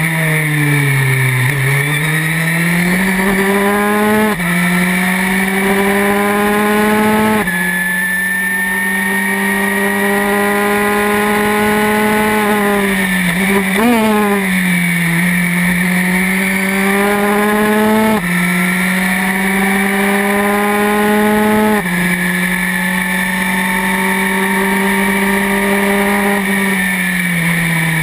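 Historic Formula 3 single-seater's engine at racing speed, heard onboard: the revs climb hard and drop sharply at several quick upshifts. The revs fall away twice for corners, with short throttle blips on the downshifts about halfway through and near the end.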